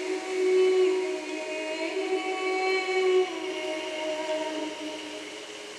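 A woman's voice singing long, wordless held tones for sound healing, several notes overlapping in slow harmony and stepping gently from pitch to pitch. It fades away near the end.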